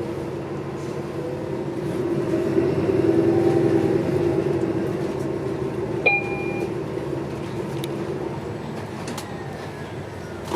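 City transit bus running, heard from inside the cabin: a steady engine and drivetrain drone that grows louder for a couple of seconds and then eases off. A short electronic beep sounds about six seconds in.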